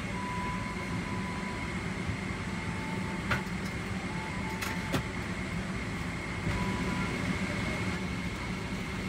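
Steady cabin noise of a Boeing 777-300ER airliner: the air-conditioning rushes with a constant faint high whine. Two light clicks come a few seconds in.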